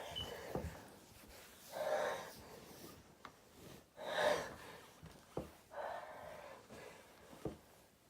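A person taking three breathy, gasping inhales about two seconds apart, the catching breaths of a sneeze building up.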